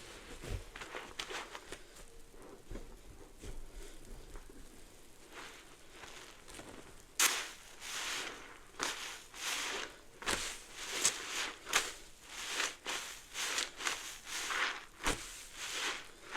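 Soapy sponge being squeezed in thick suds, the foam crackling. Soft crackling at first, then from about seven seconds in a run of wet squelches about two a second.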